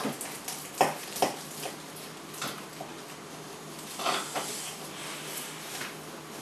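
A kitchen knife cutting down through a fruitcake, knocking and scraping against the plate beneath it: a few sharp clicks, the loudest two about a second in, and a few more about four seconds in.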